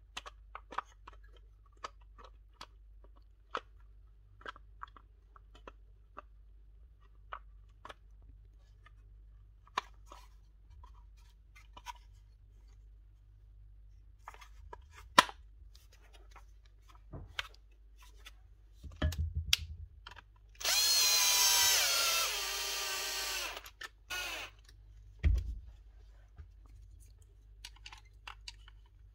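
Clicks and light knocks of plastic tool parts being handled and fitted. About twenty seconds in, a small electric power tool runs for about three seconds, its pitch sagging slightly under load, and a knock follows shortly after.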